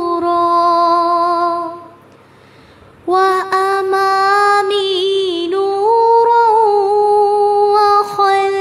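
A woman's voice singing a slow, melodic du'a chant in long held notes with small ornamental turns. The voice breaks off for about a second about two seconds in, then resumes.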